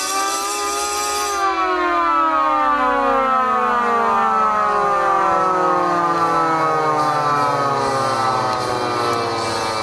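Electric motor siren winding down after being cut: its pitch falls slowly and steadily after about a second and a half at full speed. A high clattering ringing sits over it at the start and stops about a second and a half in.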